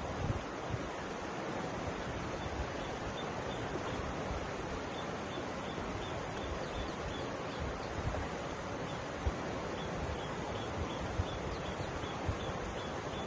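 River water flowing, a steady even rushing, with uneven low rumbles of wind on the microphone.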